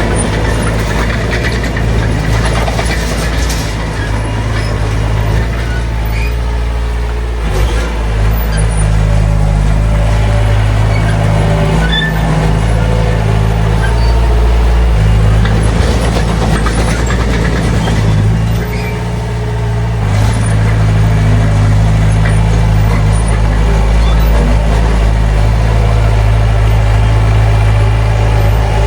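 Heavy diesel construction machinery running under load, a deep steady engine note that shifts in pitch and level several times, dipping briefly about two-thirds of the way through.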